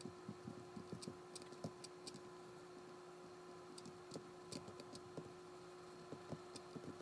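Faint, irregular clicks of a computer keyboard and mouse, several a second, over a steady low hum.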